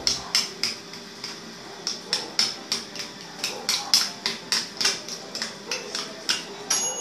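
A spoon stirring cheddar sauce in a small glass bowl, clinking against the glass in irregular sharp clicks, two or three a second.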